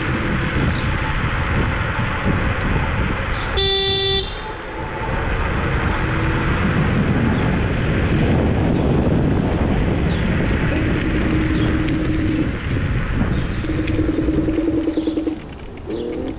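Wind buffeting the microphone and road rumble from riding an electric scooter at speed, with one short horn toot lasting about half a second, about three and a half seconds in.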